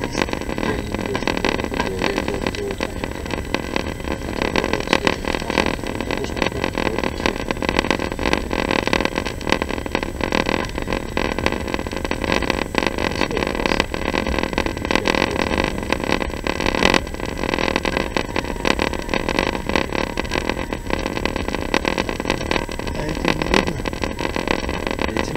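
Steady running noise of a moving vehicle heard from inside: a constant rumble with frequent small irregular knocks and rattles.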